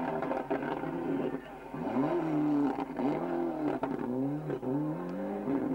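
Rally car engine on a gravel stage, running steadily at first, then revving hard, its pitch climbing and dropping back in about five quick surges as the car drives off.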